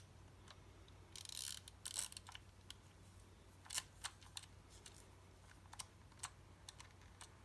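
Faint scattered small clicks, with a short scrape about a second in and another near two seconds, from hands working on a Nikon FM2 camera body whose shutter mechanism is stuck.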